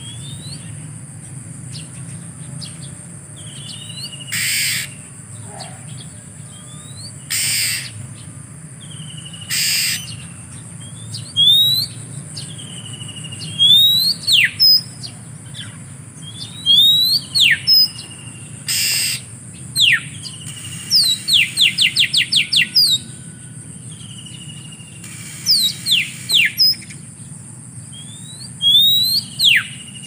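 Oriental magpie-robin calling: short whistled notes that sweep up and down, a quick run of rising notes near the middle, and several harsh rasping calls between them. A steady high insect drone runs underneath.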